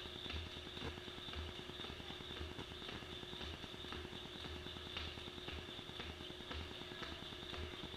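Jump rope skipping on a rubber gym floor: feet landing and the rope ticking in a steady rhythm of about two beats a second, over a steady background hum.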